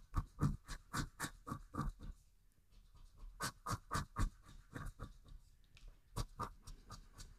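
The edge of a poker chip scratching the latex coating off a paper scratch-off lottery ticket. It goes in quick back-and-forth strokes, several a second, in three runs separated by brief pauses.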